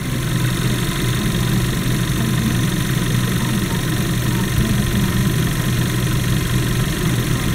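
VW Golf Mk6 1.4 TSI (CAVD) twincharged four-cylinder petrol engine idling steadily.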